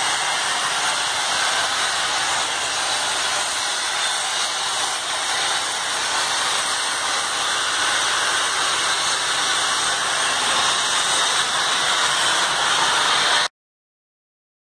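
Steam hissing steadily out of an industrial boiler's open end, a loud even hiss that cuts off abruptly near the end.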